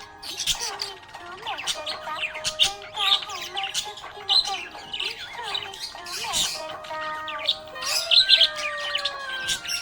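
Budgerigars chirping and chattering in a dense run of rapid high calls, loudest about eight seconds in.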